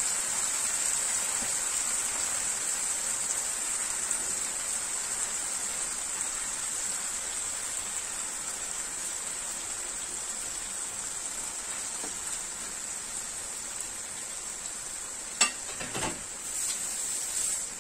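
Mustard-paste masala sizzling steadily in a non-stick frying pan as hilsa steaks are laid into it, the sizzle easing slowly. A sharp click and a knock come near the end.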